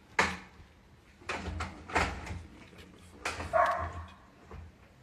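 A dog barking, about four sharp barks spaced a second or so apart.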